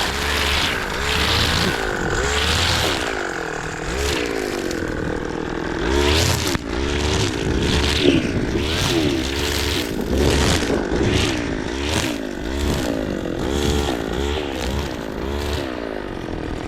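Petrol string trimmer (weed whacker) revving up and easing off over and over, roughly once a second. Each rev comes with a hissing swish as the line cuts through weeds.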